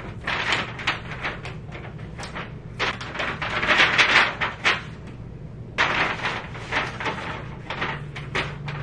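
Plastic shipping mailers, paper and clothing being handled and rustled by hand while orders are sorted and packed, in a string of irregular crinkling bursts, loudest about four seconds in and again about six seconds in. A steady low hum runs underneath.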